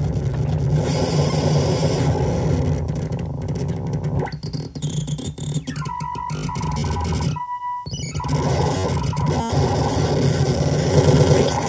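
Benjolin analog synthesizer putting out a dense, noisy drone over a low hum, its texture shifting as the knobs are turned. About six seconds in it settles into a steady held tone, cuts out for a moment, then comes back as a gritty noisy drone.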